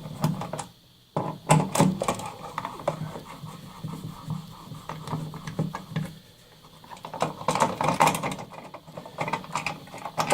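Scrapes and clicks of a wall outlet and its wiring being handled and pulled from the electrical box, over a low steady hum, with a brief near-silent gap about a second in.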